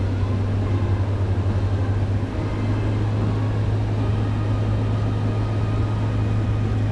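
Steady low machine hum with an even hiss beneath it.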